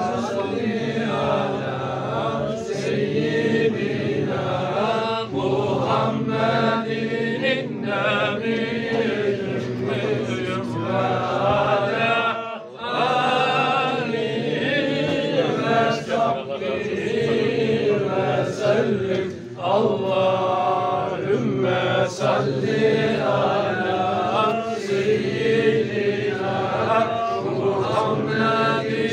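A group of men chanting a Sufi dhikr together in a continuous stream of repeated phrases over a steady low bass of voices, with a brief dip about twelve seconds in.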